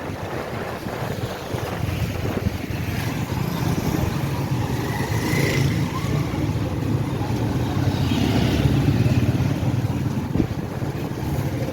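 Motorcycle engine running while riding along, with wind rushing over the microphone.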